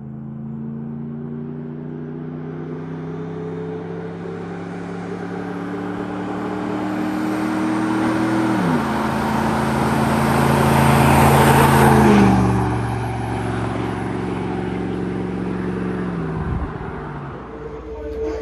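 Pickup truck with a newly fitted dual axle-dump exhaust accelerating up the road toward the listener. The engine note climbs and drops sharply twice as the truck shifts up. It is loudest as the truck comes close, just before the second shift, then runs lower and steadier as it fades.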